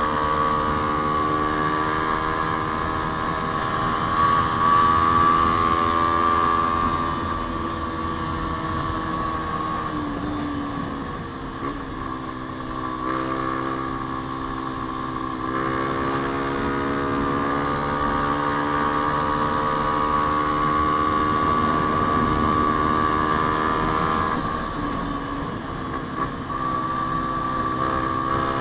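Yamaha Sniper 150's single-cylinder four-stroke engine breathing through an aftermarket JVT exhaust pipe, heard while riding. The engine note rises and falls with the throttle: it drops about ten seconds in and builds again a few seconds later.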